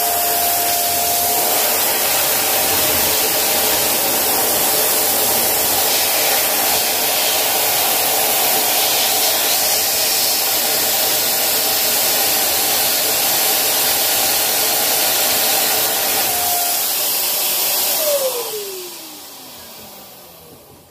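Pink handheld electric balloon pump running steadily, blowing air into an inflatable vinyl bear chair. About 18 seconds in it is switched off and its whine falls in pitch as the motor spins down.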